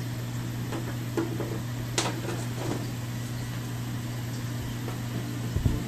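A steady low hum throughout, with a few faint clicks and taps as hands handle an LED light strip and its connectors against the back of a TV; the sharpest click comes about two seconds in, and a couple of low knocks come near the end.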